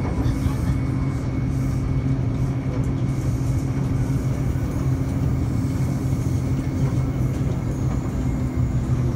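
Taipei Metro C301 electric multiple-unit train running at a steady speed: a constant low rumble of wheels on rail with a steady motor hum.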